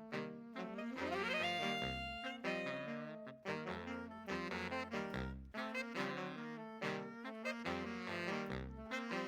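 Background music: an upbeat jazzy tune with a saxophone-like lead, a walking bass line and a steady beat.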